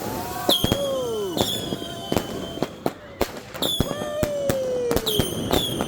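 Fireworks going off at close range: a rapid run of sharp bangs, a few a second, mixed with several whistles that drop in pitch.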